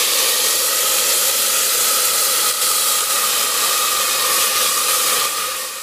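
Chopped tomatoes sizzling in hot oil in a cooking pot: a steady hiss that fades out near the end.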